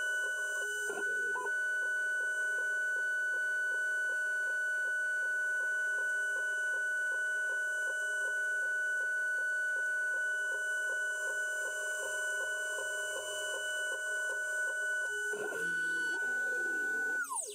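The spindle of a home-built CNC milling machine whines at a steady pitch while an end mill cuts a nylon block, with a faint regular ticking under it. Near the end the sound changes as the cutter comes clear. Then the whine falls quickly as the spindle spins down and stops.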